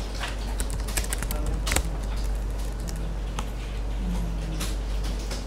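A few scattered keystrokes on a computer keyboard, a short command typed and Enter pressed several times, over a low steady hum.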